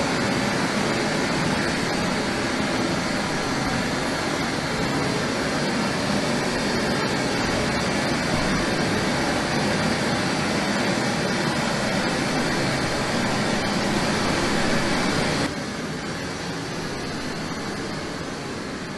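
Steady rushing test noise from a dodecahedron speaker, played for measuring the sound insulation of a Variflex partition wall. It starts abruptly. About fifteen seconds in it drops in level and turns duller, losing its high end.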